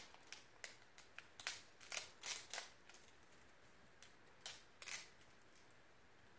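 Plastic wrapping on an LOL Surprise toy ball crinkling and crackling in short bursts as it is picked and peeled open by hand. The wrapping is stuck hard and comes away only in small crackles.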